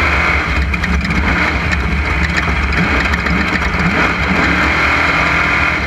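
Off-road race vehicle's engine running hard at speed on a dirt track, its pitch rising and falling with the throttle, with scattered knocks and rattles from the rough ground.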